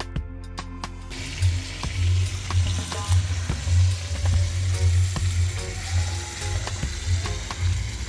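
Bird meat frying in hot oil and burnt curry in a cooking pot: a steady sizzle that starts suddenly about a second in, over irregular low rumbles.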